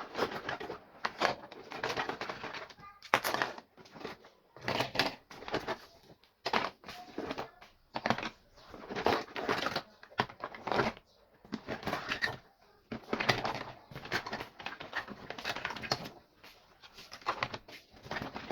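Miniature plastic toy kitchen pieces and their packaging being handled and unpacked: irregular clicking, tapping and crinkling in short bursts with brief pauses between them.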